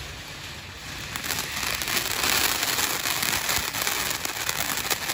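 TNT Countdown consumer firework fountain burning, spraying with a dense hiss and rapid crackling that swells louder about a second in.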